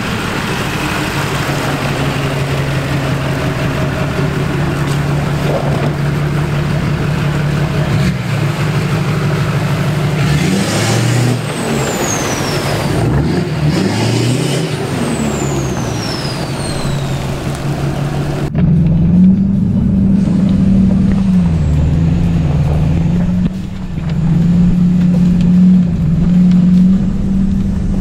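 Lifted Duramax V8 turbo-diesel pickup driving and revving through mud on a dirt road, its engine pitch rising and falling near the middle with two high falling whistles. About two-thirds of the way through it cuts to a steadier, louder engine drone.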